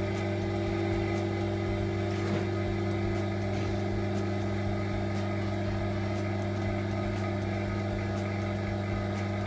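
Steady low electric hum from a vacuum casting table's pump running while molten metal is poured into the investment flask to draw the metal into the mould.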